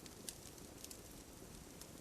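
Wood campfire crackling faintly: a few sharp little pops and snaps over a low steady hiss.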